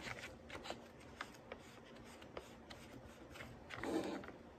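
Gloved hands handling a foil Capri Sun drink pouch while sealing its straw hole: faint scattered crinkles and small clicks, with a louder rustle about four seconds in.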